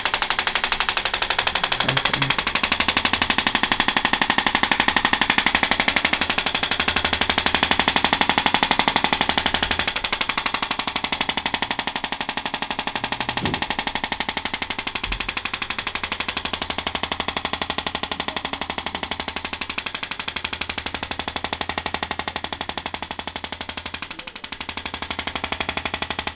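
A small motorised device running steadily with a rapid, even buzz of pulses. It starts abruptly and eases slightly in level about ten seconds in.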